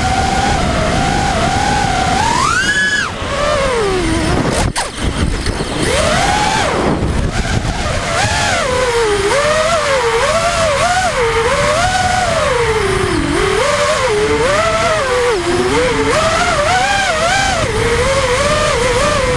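FPV racing quadcopter's brushless motors whining, the pitch rising and falling quickly with the throttle, with a sharp climb about three seconds in and a brief drop in level just under five seconds in.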